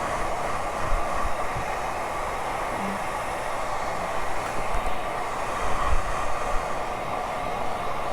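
Handheld hair dryer running steadily, blowing on the wig lace to set the adhesive, with a few brief low thumps from handling.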